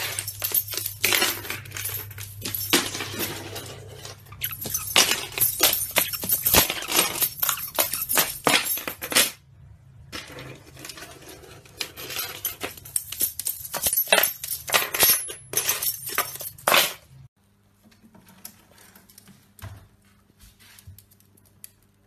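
Rapid, irregular clattering clicks and clinks from a caique parrot scrabbling and playing on a hard wooden floor. The clatter breaks off briefly around ten seconds in and stops suddenly a few seconds before the end, leaving only faint sounds.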